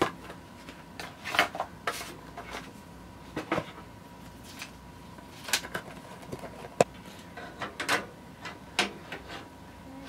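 Paper and cardboard rustling and scraping as a PC case fan's packaging and instruction sheet are handled: scattered short rustles about every second, with one sharp click about seven seconds in.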